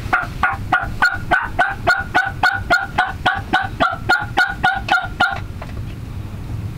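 Turkey yelps: a long, even run of short notes, about four a second, that stops a little over five seconds in.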